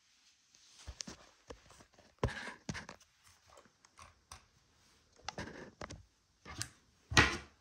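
Handling noise of a camera being picked up and set in place: scattered clicks, taps and rustles, with a louder bump near the end.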